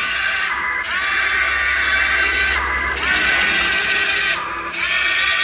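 RC excavator's electric drive whining steadily; three times the whine sags in pitch and glides back up, as the motor takes load and recovers.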